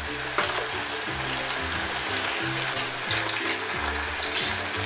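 Aubergine and tomato sauce sizzling in a stainless frying pan as drained rigatoni are dropped into it from a spider strainer, with a few short clicks near the end.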